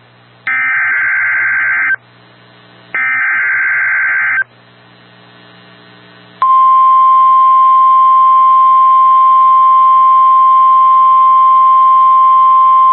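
NOAA Weather Radio alert: two buzzy data bursts of the SAME (Specific Area Message Encoding) header, each about one and a half seconds long and a second apart, then, about six seconds in, the steady 1050 Hz warning alarm tone. It signals that a new severe thunderstorm warning is about to be broadcast.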